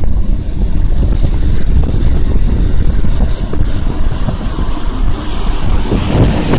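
Wind buffeting the microphone of a camera riding along on a road bike: a loud, rough, steady rumble.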